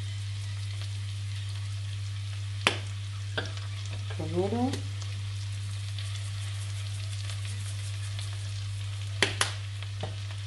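Sliced mushrooms and cherry tomatoes frying in a nonstick pan over fairly high heat: a steady sizzling hiss, broken by a few sharp clicks, one about three seconds in and two close together near the end.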